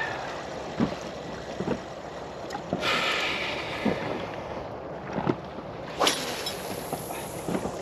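Water slapping and lapping against a small inflatable boat, with the whir of a spinning reel being wound in about three seconds in. Near six seconds a lure is cast and the line hisses off the spool for a second or so.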